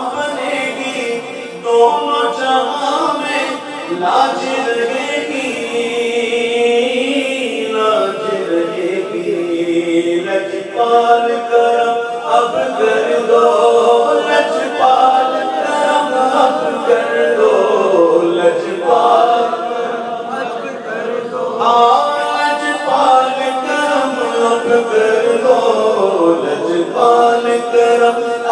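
A man singing an Urdu naat into a handheld microphone, in long, drawn-out melodic lines that bend in pitch.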